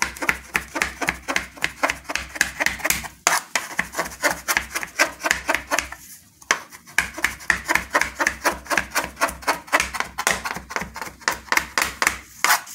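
Chef's knife chopping cooked shrimp, chicken and beef on a plastic cutting board: quick, even strokes about five a second, pausing briefly twice.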